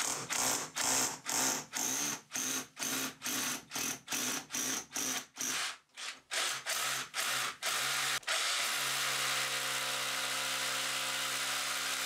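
Cordless SDS drill boring a pilot hole into a cavity wall with a short masonry bit. It runs in short bursts, about two or three a second, then after a brief pause runs steadily from about eight seconds in until it stops at the end.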